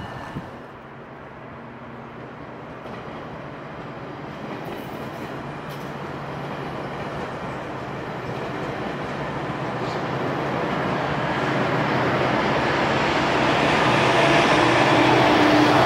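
GO Transit bilevel commuter train passing, its rumble growing steadily louder, with a steady diesel locomotive hum coming in over the last few seconds as the locomotive draws level.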